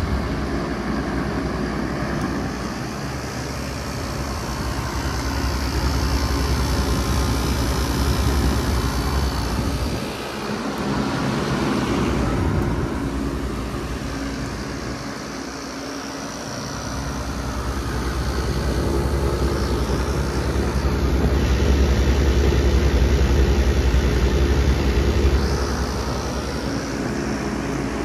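Wall-mounted packaged air conditioner running: a steady low hum from the compressor under the airy whoosh of its condenser fan, with rain. The low hum dips briefly twice.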